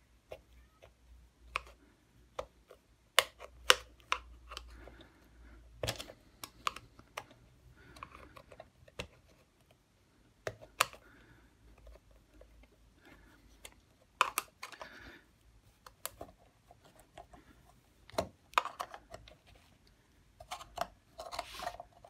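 Irregular sharp clicks, taps and short scrapes of a screwdriver and a flat metal tool prising at the clamped metal seam of an electric shower's copper boiler.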